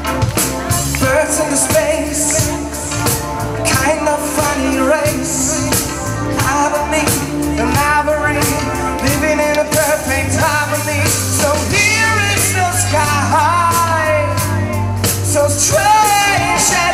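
Live rock band playing, with a sung melody over drums and bass guitar.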